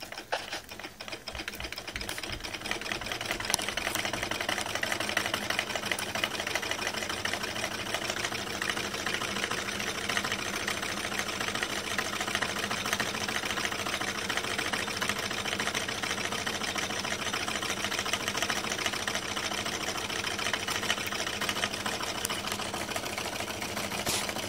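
Candle-heated Stirling engine running fast with a rapid, steady mechanical clatter, building up over the first couple of seconds.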